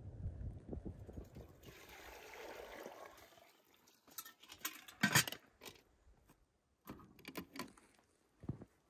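Low rushing water, then a pouring hiss, followed by scattered clicks and knocks of metal kettles and a samovar being handled, the loudest knock about five seconds in.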